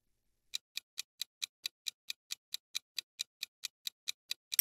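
Countdown-timer clock ticking sound effect: quick, even ticks about four to five a second, starting about half a second in.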